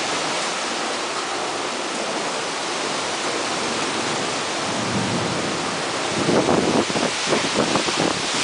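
Heavy rain pouring in a strong windstorm, a steady hiss. From about six seconds in, wind gusts buffet the microphone unevenly.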